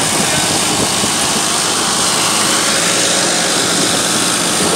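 Massey Ferguson 9500 tractor's diesel engine running steadily under heavy load while it pulls a 10-foot rotavator, its blades churning through dry soil.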